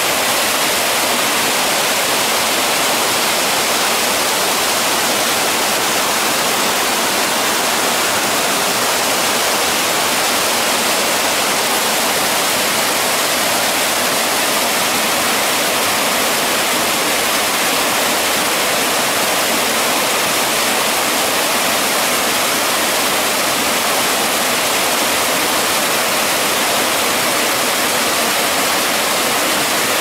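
A small waterfall and the swollen mountain-river rapids below it rushing steadily, the water running high after rain.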